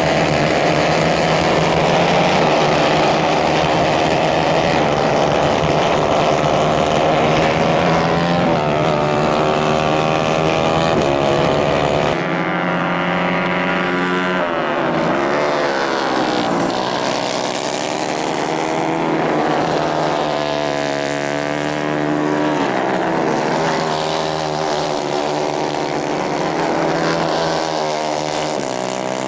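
Racing kart engines running hard on a dirt track. Their pitch climbs steadily for the first several seconds, then after about twelve seconds it keeps dropping and rising again as the karts lift off and accelerate.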